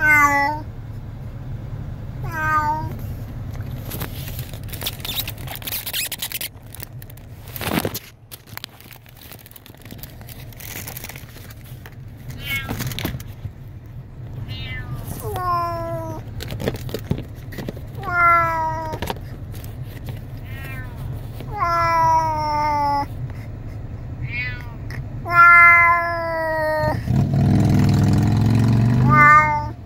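A domestic cat meowing again and again, drawn-out meows that fall in pitch, one every few seconds. A steady low hum runs underneath, and a louder low rumble comes near the end.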